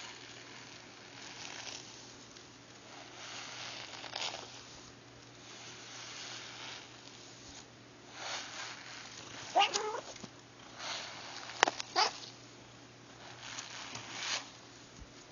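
A domestic cat making odd breathy noises over and over, with a short wavering cry about two-thirds of the way through and a couple of sharp clicks soon after. These are distress sounds from pain on his backside when he is touched.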